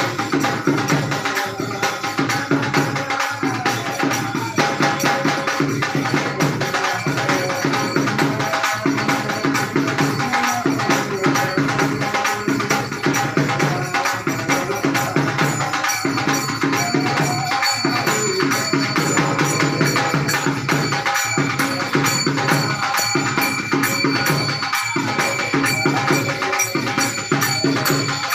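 Devotional kirtan music with a steady beat of hand cymbals and drum over a sustained melody.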